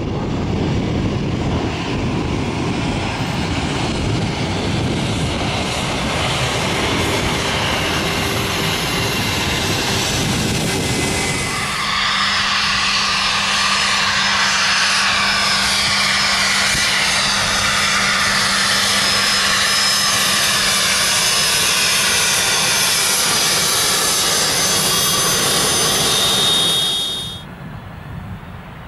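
Embraer ERJ-135 regional jet's turbofan engines: a low rumble as it flies past on landing approach. After a cut about 12 seconds in comes a steady high-pitched engine whine as it taxis close by. Near the end the sound drops to a much quieter jet rumble from a Boeing 767-300 on approach.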